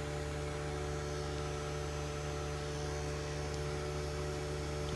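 Steady low hum with several steady pitched tones inside a car's cabin, the car idling.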